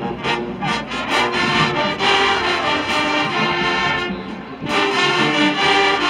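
High school marching band brass section playing loud held chords on trumpets, trombones, mellophones and sousaphones. The sound thins out briefly about four seconds in, then comes back in full.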